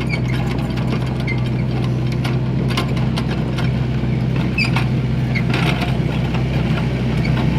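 An engine running steadily at an even, unchanging pitch, with scattered light clicks and a few faint high chirps over it.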